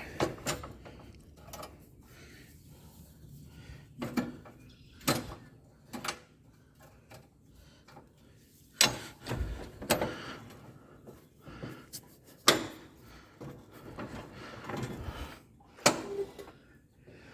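Irregular clunks and knocks of metal, about ten scattered over the stretch with quiet between them, as a John Deere 43C front blade's frame is worked into its mounts under the tractor to get it to lock on.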